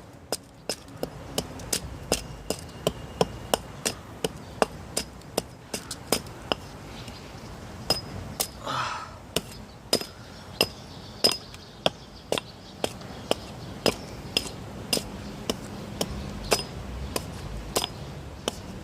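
Hatchet blows striking a very hard log, about two a second, each a sharp crack with a brief metallic ring. The wood is so hard that the blows barely bite and the log is not splitting.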